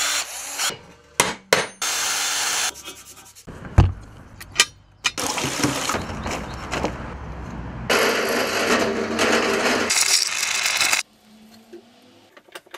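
Short snippets of workshop sounds, cut abruptly one after another: rubbing and scraping noises, a heavy thump about four seconds in, and a few seconds of steady noisy sound, followed by a quieter stretch near the end.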